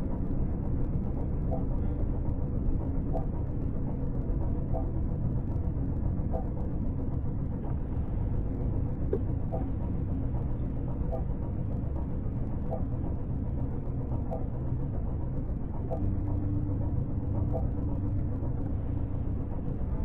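Steady low rumble, with faint short high notes recurring roughly every second.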